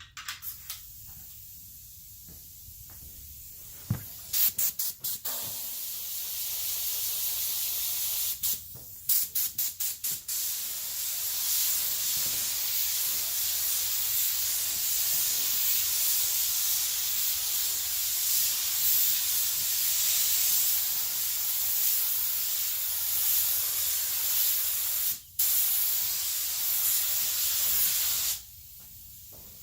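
Paint spray gun hissing as clear coat is sprayed: a few short trigger bursts, then long steady passes broken by a brief gap. The spraying stops near the end and starts again just before the end.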